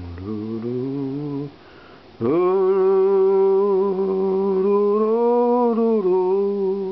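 A voice singing long, held notes of a slow tune: a short rising note, a brief pause, then one long note of several seconds that wavers and steps in pitch before stopping abruptly.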